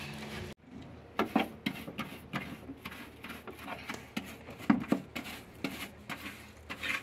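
A stiff hand brush scrubbing and scraping caked dirt and grit out of a van's metal door sill channel, in irregular scratchy strokes.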